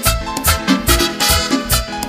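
Latin dance music, an instrumental passage with a steady beat of about three bass hits a second and no singing.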